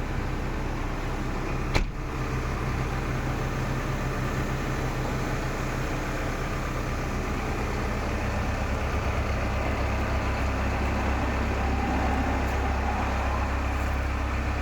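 CAT 312E-2 hydraulic excavator's diesel engine running steadily, with a single sharp knock about two seconds in.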